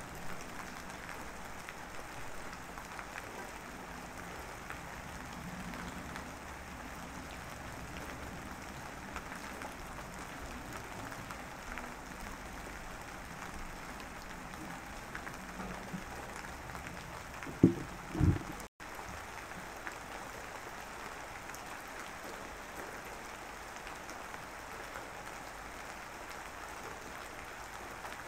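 Steady background hiss with faint scattered crackling, broken by two short low thumps close together about two-thirds of the way through.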